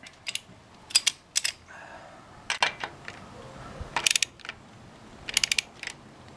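Socket ratchet clicking in short runs of rapid clicks, five or so runs about a second or more apart, as it turns a 22 mm deep-well socket to unscrew a motorcycle's oil filter adapter.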